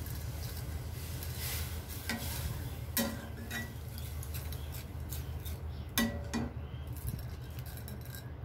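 Flat metal spatula stirring vermicelli in milk in a metal kadai, scraping and clinking against the pan a few times, over a steady low hum.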